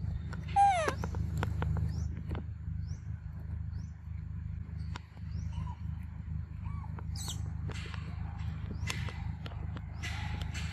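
A short, loud animal call that falls in pitch comes about half a second in. Scattered clicks and a few faint short chirps follow, over a steady low rumble.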